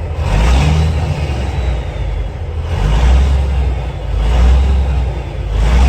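Peterbilt 362 cabover's diesel engine running, its sound swelling and easing several times as it is revved. The owner finds it running smoother and a little quieter.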